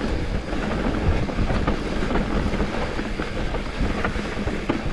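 Specialized Turbo Levo e-mountain bike ridden along a dirt trail: a steady rumble of tyres on the ground, with frequent sharp clicks and knocks of the bike rattling over bumps.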